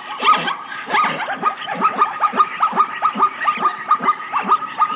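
Zebra barking: a fast run of short yelping calls, each falling in pitch, about four a second.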